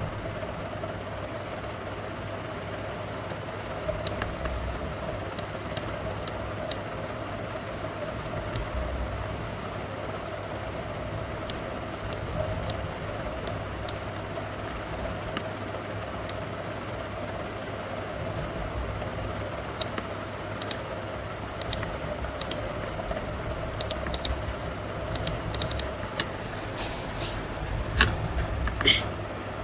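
Steady background hum with scattered sharp clicks, typical of working a computer mouse and keys; the clicks come thicker near the end, with a few louder rustling bursts.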